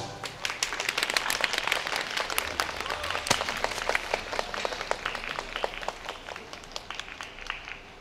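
Applause from a small audience, the separate claps easy to pick out, thinning and dying away near the end.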